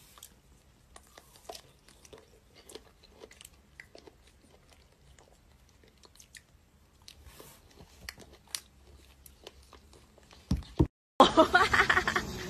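Close-up, wet chewing and biting of fresh strawberries, a string of faint small clicks and smacks. Near the end it cuts to a much louder, dense noise with voices.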